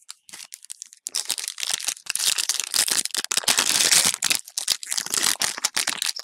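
Foil wrapper of a Pokémon trading-card booster pack crinkling and tearing in the hands as it is opened: a dense run of crackles that starts thinly, thickens about a second in and is loudest in the middle.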